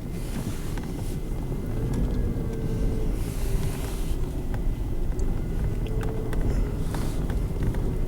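Vehicle engines running with a steady low rumble and a faint wavering hum, with short bursts of hiss about half a second in, around three seconds in and near the end.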